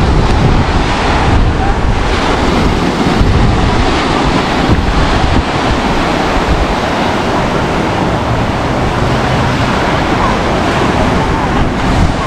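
Ocean surf breaking and washing up a sandy beach, with wind blowing on the microphone.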